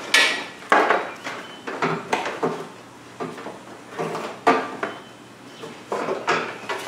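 A/C condenser being worked up out of its mounts in the car's front end: irregular clunks, scrapes and rattles of the condenser against its brackets and the surrounding plastic, with a quieter stretch in the middle.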